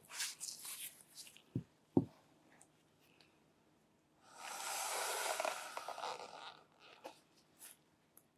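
Packaging being handled: a short scratchy rustle, two soft knocks about a second and a half and two seconds in, then a longer tearing rustle lasting about two seconds, followed by a few light clicks.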